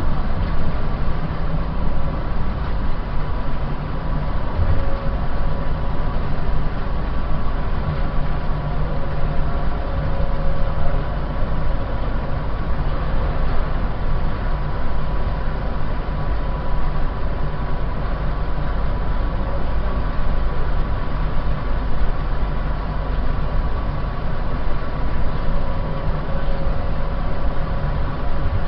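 SkyLine airport people mover car running along its guideway, heard from inside the car: a steady rumble with a constant high tone riding on top.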